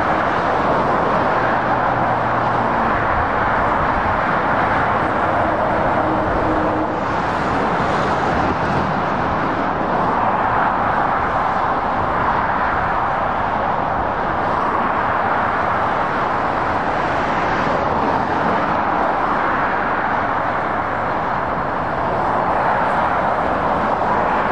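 Steady motorway traffic noise from passing lorries and cars: a continuous roar of tyres and engines. A low steady hum underneath it stops about seven seconds in.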